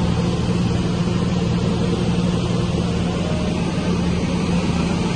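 Single-engine propeller light plane's engine and propeller droning steadily in flight, heard from inside the cabin.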